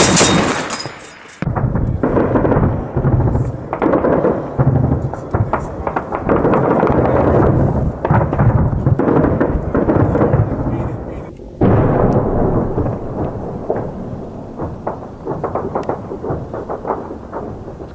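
A burst of heavy machine-gun fire that cuts off after about a second and a half. It is followed by continuous rumbling gunfire and blasts. About twelve seconds in, a large explosion booms and its rumble slowly dies away.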